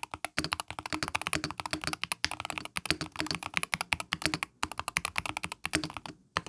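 Fast typing on a Keychron K2 HE mechanical keyboard with Hall-effect magnetic switches and double-shot PBT keycaps: a rapid, fairly quiet run of keystrokes with short pauses a little after two seconds, past the middle and near the end.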